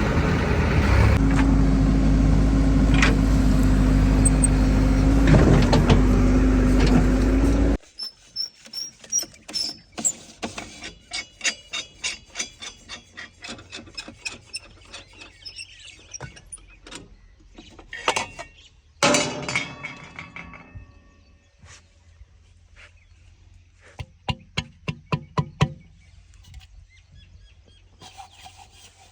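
Engine of a heavy machine running steadily with a held tone, cutting off abruptly about eight seconds in. A long series of quick, quieter clicks and knocks follows, with one louder burst partway through.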